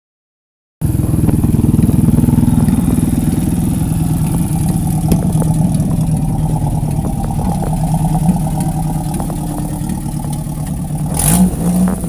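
Dirt bike engine idling steadily close by, with a short knock near the end.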